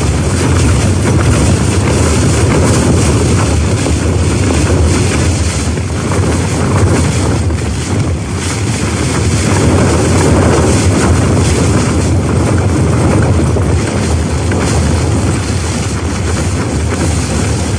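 Strong gusting wind battering a small backpacking tent, heard from inside the tent. It is a loud, steady rushing rumble that swells and eases a little, with wind buffeting the microphone.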